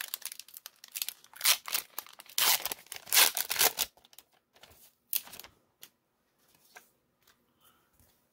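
A 1999 Topps Gold Label baseball card pack wrapper being torn open and crinkled in the hands: a run of crackling tears and rustles over the first four seconds, then only a few faint light clicks and rustles.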